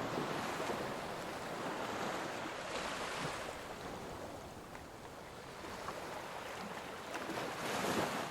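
Sea waves washing in an even rushing noise that swells and eases, loudest near the end.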